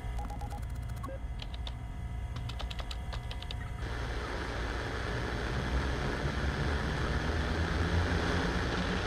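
A low drone with scattered light clicks, then about four seconds in radio static comes in as a steady hiss over the drone and holds, growing slowly louder.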